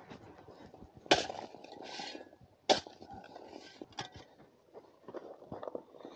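Shovel working dry, loose dirt around a wooden post being set in its hole: two sharp strikes about a second and a half apart with a scrape of soil between them, then lighter knocks and scuffs.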